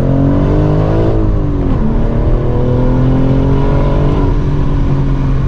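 BMW M4 G82's twin-turbo inline-six accelerating through a full titanium valved cat-back exhaust. The engine note rises, dips just under two seconds in, then climbs again more slowly.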